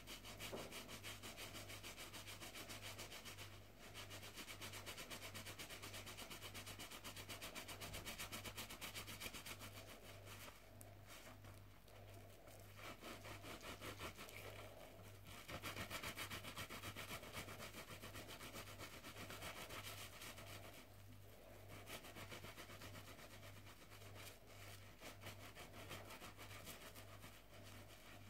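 Close-up scrubbing of a bath sponge in soapy foam: fast, even scratchy rubbing strokes, stopping briefly a few times.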